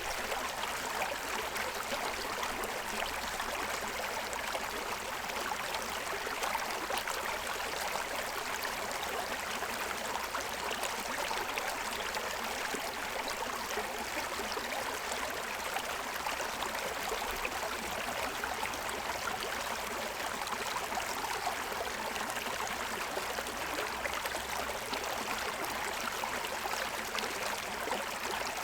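Forest stream running and splashing over the stones of its bed, a steady, even rush with small gurgles.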